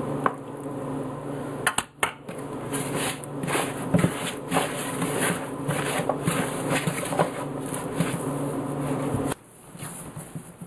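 Hands mixing biscuit dough in a plastic bowl, with irregular knocks and rubbing against the bowl, over a steady low hum that stops suddenly near the end.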